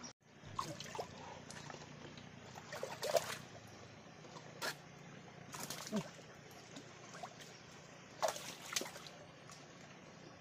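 Water splashing and sloshing in short, irregular bursts, the biggest about three seconds in and another cluster near eight seconds.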